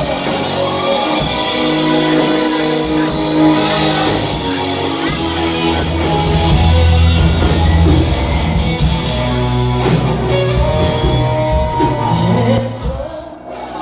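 Live rock band playing loud, with female vocals over electric guitar and bass; the music drops back briefly near the end.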